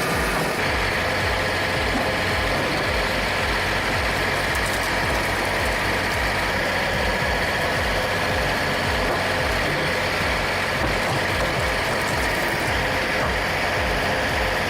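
Engine of the tractor carrying a front-loader-mounted 50/80 firewood splitter running steadily, with a steady higher whine over its low pulsing.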